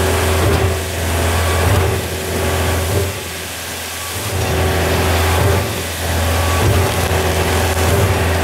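Concrete pump truck running while it recirculates concrete through its hopper: a steady low engine hum that swells and dips every second or two.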